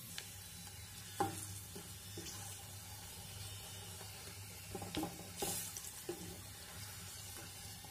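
Panipuri shells deep-frying in oil on a medium-to-low flame, a faint steady sizzle. A wooden spatula turning them taps lightly against the pot a few times, about a second in and again around five to six seconds in.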